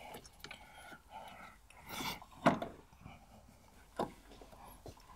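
A few light knocks and clicks from hands repositioning a timing belt on the pulleys of an engine. The loudest is about two and a half seconds in and another comes about four seconds in.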